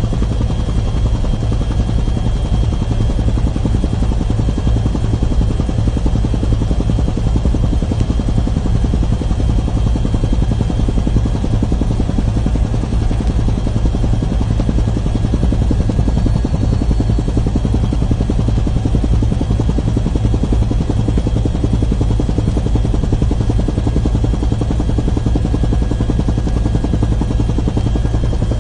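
Helicopter noise heard from inside the cabin in flight: a loud, steady deep drone with a rapid rotor beat and a thin high whine running over it.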